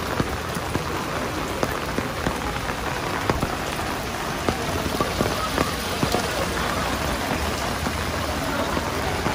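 Heavy rain falling on wet pavement: a steady hiss of downpour, with many close raindrops tapping sharply throughout.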